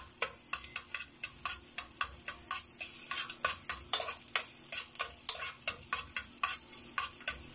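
Chopped garlic sizzling in oil in a stainless steel pot while a utensil stirs it, clicking and scraping against the pot about three times a second: garlic being sautéed until golden brown.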